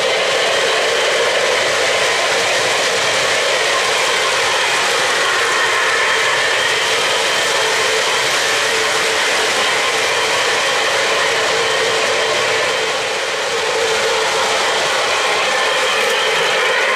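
O-gauge three-rail model trains running on the layout: a steady whir and rattle of the electric locomotive motors and the metal wheels rolling over the track joints.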